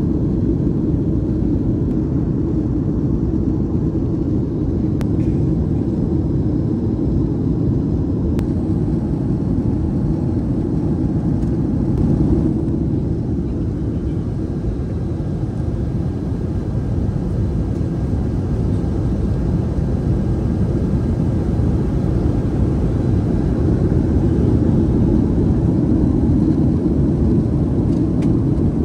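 Steady low rumble of engine and airflow noise inside the cabin of a Boeing 737-500 in flight.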